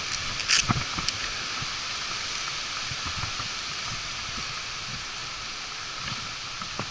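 Steady hiss on a helmet-mounted camera's microphone, with a few short clicks and knocks in the first second and another near the end from the climber's rope and harness hardware being handled against the trunk.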